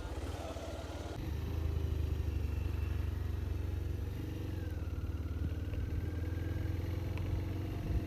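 Motorcycle engine running steadily, close by, getting louder about a second in and then holding an even pitch.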